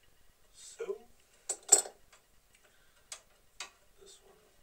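Spanner clinking against nuts and bolts on a lathe's sheet-metal headstock: several sharp metallic clicks, the loudest a little under two seconds in.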